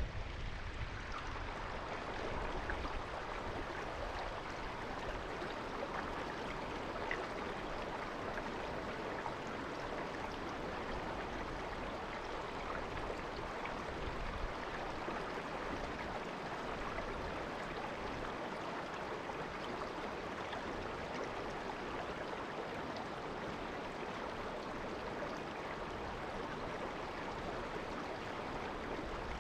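A shallow river babbling, with steady, even rushing water throughout.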